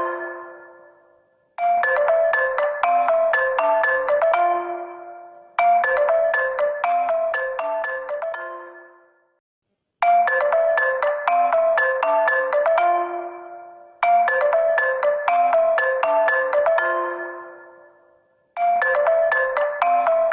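HONOR phone ringtone: a short melody of marimba-like struck notes that ends on a held lower note and fades out. It repeats about every four seconds, with a brief silence between repeats.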